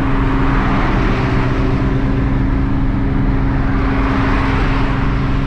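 VR6-swapped Mk3 Volkswagen Golf cruising at steady motorway speed, heard from inside the cabin: a steady engine drone under tyre and wind noise. The road noise swells about four seconds in as another car draws alongside.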